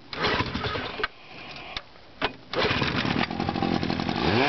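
1962 West Bend Commodore 18 hp two-stroke outboard motor being cranked and started: a few clicks and uneven turning-over, then a denser rattle from about halfway. Near the end it catches, with the pitch rising as it revs up.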